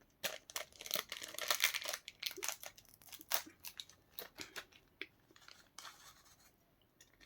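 Plastic food packaging crinkling and being torn open, a run of sharp crackles that is busiest in the first two seconds and thins out later.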